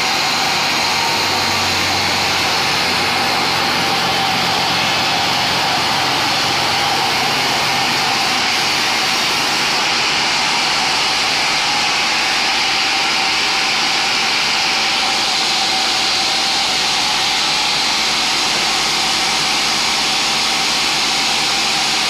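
Sawmill band saw running: a loud, steady whir and hiss with a thin high whine. A low hum under it fades about eight seconds in.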